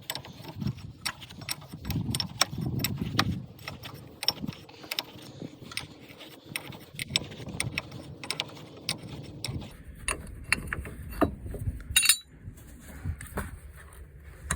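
Metal wrench and hydraulic fittings clicking and clinking as an elbow fitting on a skid steer's hydraulic line is worked loose, in quick irregular ticks. There is one louder clank about twelve seconds in.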